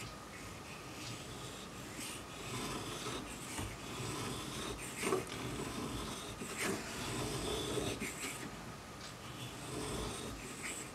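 The small steel cutter of a Stanley 71 router plane being honed by hand, rubbed back and forth over a sharpening block in repeated strokes that give a dry rasping scrape.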